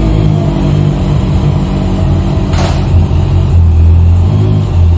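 Honda CBR650F's inline-four engine running at idle just after being started, a steady note.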